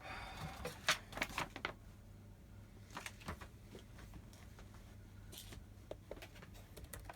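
Faint, scattered clicks, taps and short rustles of small parts and packaging being handled during assembly of the 3D printer.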